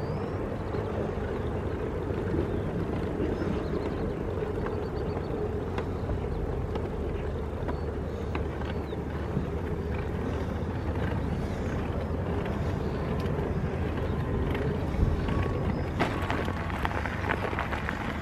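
Mountain bike tyres rolling over the planks of a wooden boardwalk, a steady rumble. About 16 seconds in the tyres run onto a gravel path and the sound turns to a brighter hiss.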